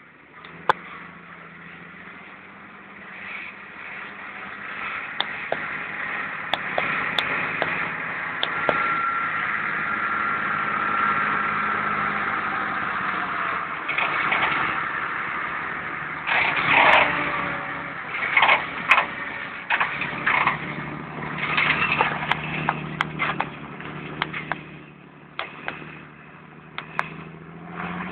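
John Deere 8200 tractor's six-cylinder diesel engine running steadily while working a field with a mounted plough, growing louder as it comes close around the middle and then easing off. A run of sharp clatters comes in the later part.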